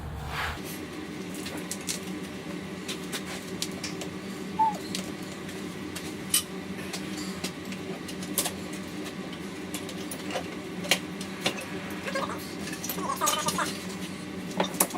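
Scattered metallic clicks and clinks of tools and steel hardware handled while a chainsaw bar is fitted into an Alaskan chainsaw mill, over a steady hum.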